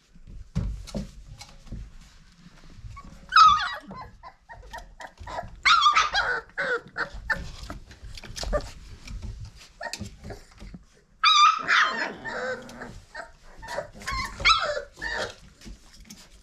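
Five-week-old red-nose pit bull puppies yipping and whining in short, high-pitched cries, several times, with soft knocks and scuffles of them moving about.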